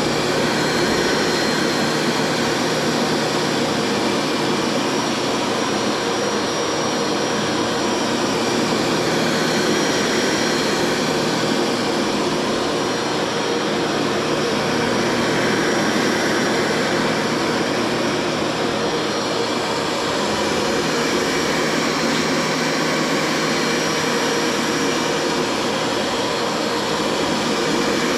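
Bissell ProHeat upright carpet cleaner running steadily, its suction motor and belt-driven brush roll going with the new belts fitted. The pump is spraying water again and the machine is sucking it back up.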